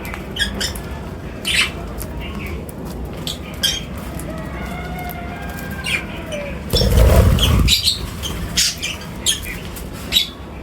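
Birds chirping and calling at a feeding spot, with a loud flurry of wing flapping about seven seconds in.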